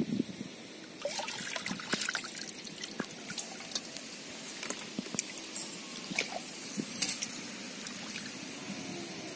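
Hands sloshing and groping through shallow muddy water, with irregular small splashes, trickles and drips starting about a second in.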